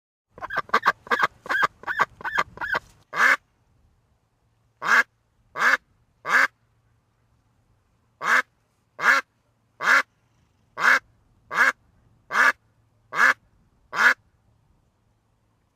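Duck quacking: a quick run of about eight short quacks, then about a dozen single quacks roughly one a second, with a pause of about two seconds partway through.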